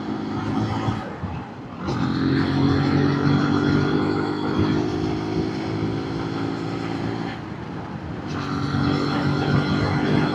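Zontes 125 Scrambler X motorcycle's engine running under way, with wind rush. It gets louder about two seconds in, drops back about three quarters of the way through and picks up again about a second later.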